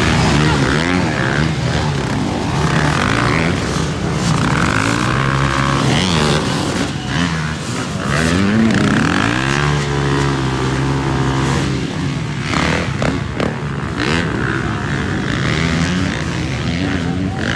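Dirt bike engines revving, their pitch rising and falling with the throttle and sometimes held steady, as the bikes churn through a mud pit.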